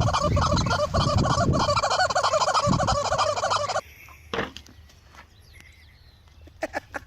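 A group of domestic fowl calling together in a dense, rapid warbling chorus that cuts off abruptly about four seconds in. After that it is quiet apart from a few soft clicks.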